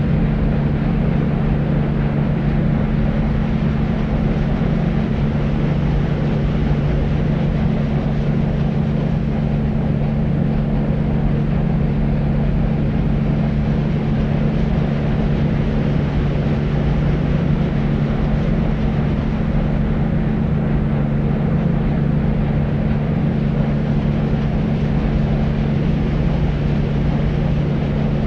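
Deep white noise: a loud, unchanging low noise with a steady hum sitting in the low range, without breaks or changes.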